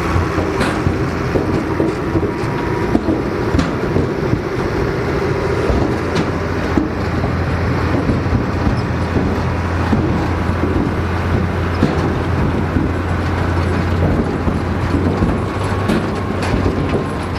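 Vintage tractor engine running steadily under load, with the clatter of harvesting machinery over its low, even hum.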